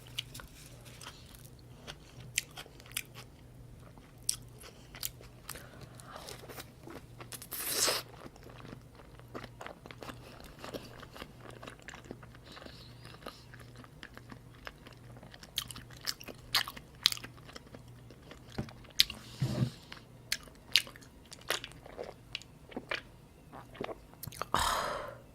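Close-miked chewing of salmon and salmon rolls: a run of small wet mouth clicks and smacks, with two longer, louder noisy sounds, one about eight seconds in and one near the end.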